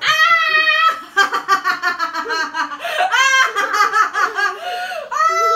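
Loud laughter and high-pitched squeals from a woman and young children, with long held cries at the start and near the end.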